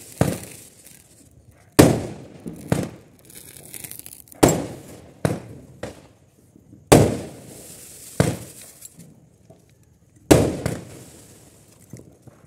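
Aerial fireworks (sky shots) bursting in a string of sharp bangs, a loud one every two to three seconds with fainter bangs in between.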